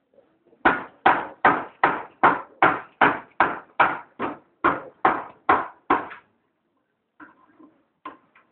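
A run of about thirteen sharp, evenly spaced knocks, a little over two a second, stopping about six seconds in, with a few fainter knocks near the end.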